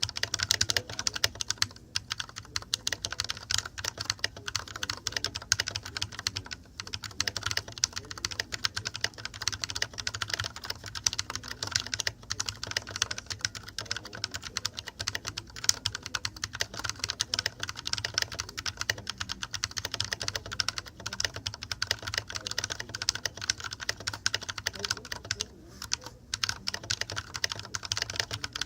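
Typing at a steady pace on a K-Type mechanical keyboard with Holy Panda tactile switches: a dense run of key clacks with a few brief pauses, over a low steady hum.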